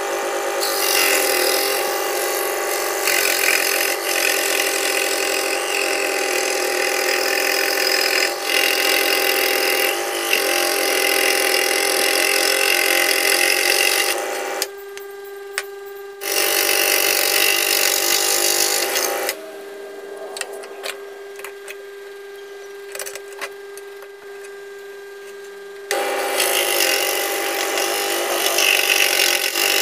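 Scroll saw running with a steady hum, its reciprocating blade cutting small circular parts from a thin sheet. The cutting noise comes in three long stretches, dropping twice, about halfway through and for several seconds after, to just the saw running while the piece is turned.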